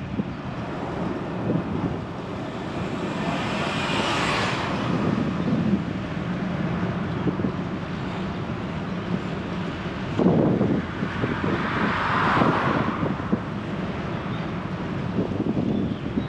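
Motor vehicles passing by, one swelling up and fading about four seconds in and another around twelve seconds in, over a steady rumble of road and wind noise on the microphone.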